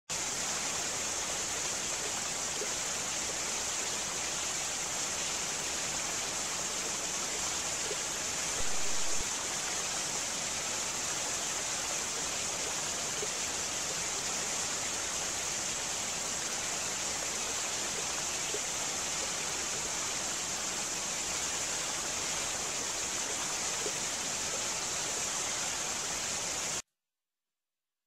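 Steady rushing of a waterfall, the recorded water sound of a waterfall live wallpaper app. It swells briefly about nine seconds in and cuts off suddenly near the end.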